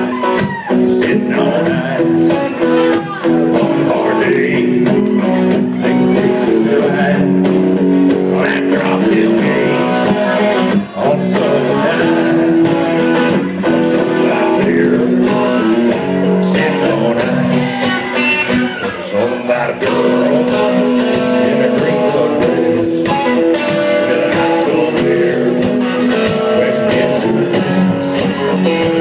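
Live country-rock band playing: strummed electric guitars holding chords over a steady drum beat.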